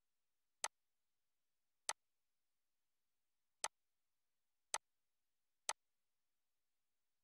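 Five sharp computer mouse clicks, irregularly spaced, with nothing else heard between them.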